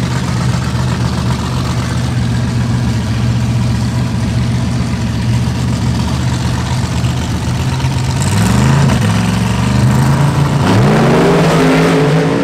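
Drag racing cars' engines running steadily and loudly at the starting line, then revving up and down about eight seconds in, and rising sharply in pitch near the end as they accelerate away.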